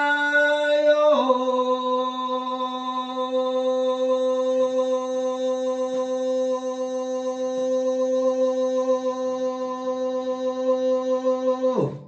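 A man's singing voice holding one long unaccompanied note, stepping down to a slightly lower pitch about a second in and then held steady for about ten seconds before it stops just before the end.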